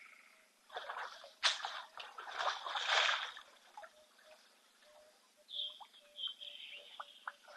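Wet splashing and rushing sounds from an elephant's trunk right at the microphone, in several bursts over about three seconds, loudest around the middle of that stretch. Then faint drips and clicks, with a few short bird calls.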